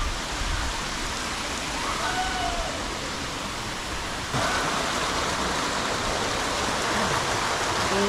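Small waterfall and stream running over rocks, a steady rushing of water that grows louder and brighter about four seconds in.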